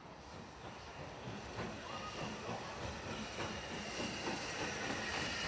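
A steam train, the D49 4-4-0 locomotive Morayshire with its coaches, running along the station line. Its rumble of wheels on the rails grows steadily louder as it draws near.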